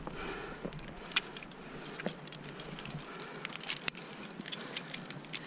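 Metal carabiners and anchor chain clinking in scattered light clicks as a climber clips into a chained bolt anchor.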